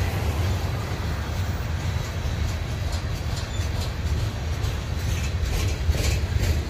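Freight train cars rolling slowly past with a steady low rumble, joined near the end by a run of sharp clicks from the wheels.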